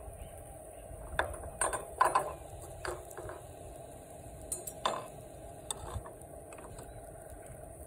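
Several sharp, irregular clicks and light clatter, loudest about two seconds in and again near five seconds, over a steady low hum.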